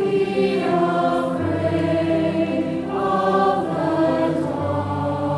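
Mixed-voice community choir singing a slow song in harmony, holding long notes; a low bass note enters about a second and a half in and again near the end.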